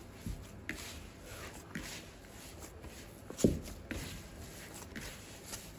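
Hands kneading a stiff, crumbly butter-and-semolina şekerpare dough in a bowl: irregular soft pats, squeezes and rustles, with one louder thump about halfway through.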